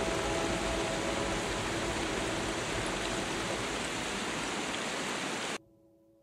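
Steady rushing-water noise with faint held music tones underneath, cut off abruptly about five and a half seconds in. Only faint sustained music tones remain after the cut.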